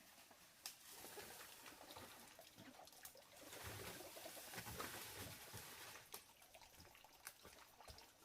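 Faint trickling water with scattered small clicks, a little louder around the middle.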